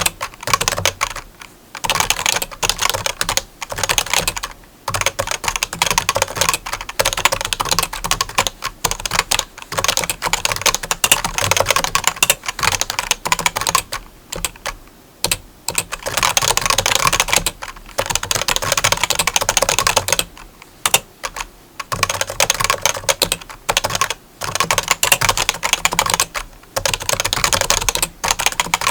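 Rapid, dense clicking in runs of a few seconds, each broken off by a brief pause, in the start-stop pattern of fast typing.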